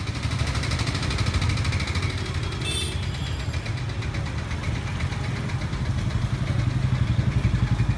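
An engine running steadily at idle, a low rumble with a fast, even pulse. A brief high-pitched sound cuts in about three seconds in.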